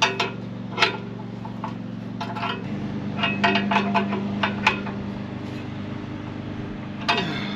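Sharp metallic clicks and taps of a wrench as a new O2 sensor is tightened into the engine's threads, a run of them between about three and five seconds in. Under them runs the steady drone of a neighbour's lawnmower engine, which changes tone about two and a half seconds in.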